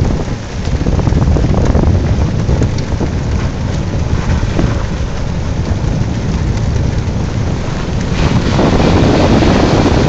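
Honda ATV riding through floodwater, heard mostly as wind buffeting the microphone and rushing water noise rather than a clear engine note. The noise grows louder and fuller about eight and a half seconds in.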